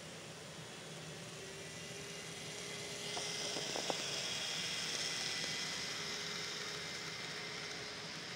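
N scale model diesel locomotives running past on the track: the steady whir of their electric motors and the rolling of wheels on rail, getting louder about three seconds in as the locomotives come close, with a few sharp clicks of wheels over track joints. The freight cars keep rolling by after them.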